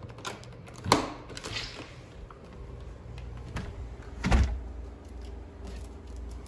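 Two sharp thumps, like a door knocking shut, about three and a half seconds apart over a steady low hum.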